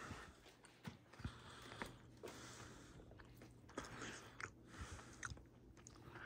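Faint, scattered crunching and scraping of a knife cutting perch at a cleaning table, over a low steady hum.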